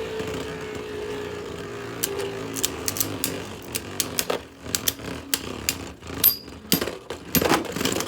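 Two spinning Beyblades, a 3D-printed top against a Guilty Longinus, whirring in the stadium with a thin tone that slowly drops as they lose spin. From about two seconds in, sharp clacks of the tops striking each other and the stadium wall come more often and loudly toward the end.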